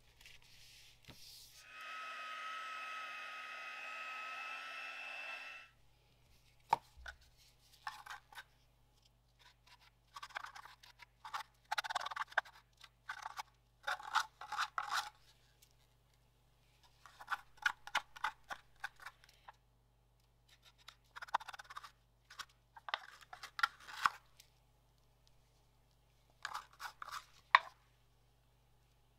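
Wooden stir stick scraping glittery resin out of a plastic cup and working it into a silicone mold: several bursts of short, scratchy scraping strokes. Before them, a steady electric hum runs for about four seconds and then cuts off.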